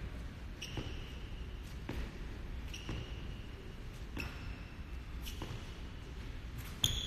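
Thuds on a hardwood gym court, about six of them at roughly one-second intervals, each followed by a short high ring; the last, near the end, is the loudest.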